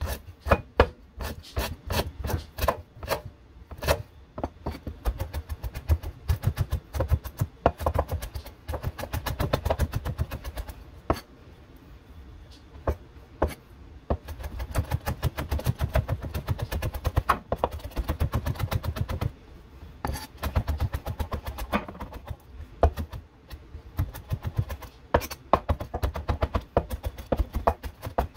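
Knife chopping rapidly on a cutting board, in runs of quick sharp strikes broken by short pauses.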